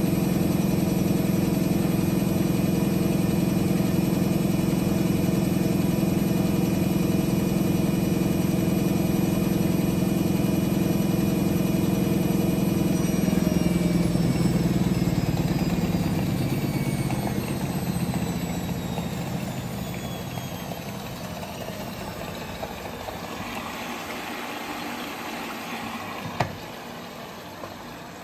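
Siemens Siwamat XS 1060 front-loading washing machine in a spin between rinses: a steady motor hum and whine, then from about halfway the whine falls in pitch and the sound fades as the drum coasts down. A single sharp click comes near the end.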